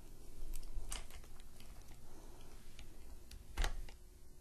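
Light clicks and taps as a small dog wheelchair's stirrup hooks and elastic straps are handled against the cart frame. The two loudest clicks come about a second in and about three and a half seconds in.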